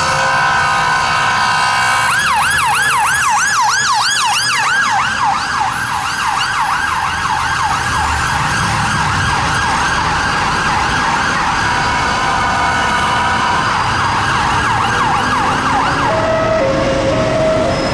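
Police car siren on an emergency run. It opens with a harsh, steady horn blast, then switches to a fast yelp of about four sweeps a second for most of the time. Near the end it changes to a lower tone stepping between two pitches, over traffic noise.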